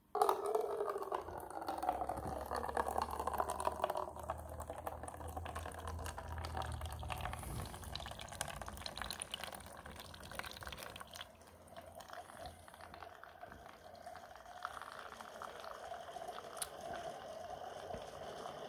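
Keurig single-serve coffee maker brewing an 8-ounce cup into a paper cup: it starts suddenly, and hot coffee streams and splashes into the cup. A low hum runs under the pouring for about the first eight seconds, then stops while the trickling goes on.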